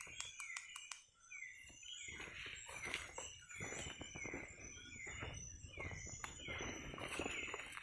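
Night tropical forest ambience: a short falling call repeating about twice a second over a steady high-pitched insect drone, with rustling and crackling of movement on the forest floor.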